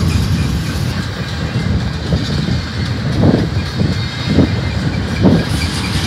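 Steel wheels of double-stack intermodal well cars rolling past on the rails: a steady low rumble with a clack about once a second as the wheel sets go by.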